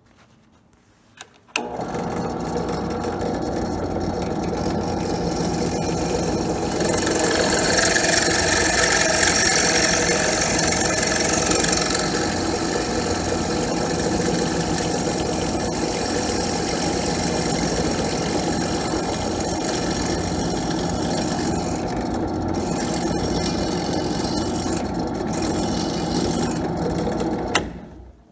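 Benchtop drill press switched on about a second and a half in, its motor running steadily while the twist bit drills out a hole in a thin metal throttle-linkage bracket. The sound is louder and harsher for several seconds while the bit cuts, and the press switches off with a click near the end.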